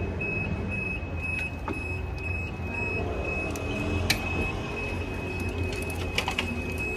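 Automatic bridge barrier's warning beeper sounding a steady series of short, high electronic beeps, about two a second, while the barrier arm lifts to reopen the footbridge. A sharp click about four seconds in and a steady low hum underneath.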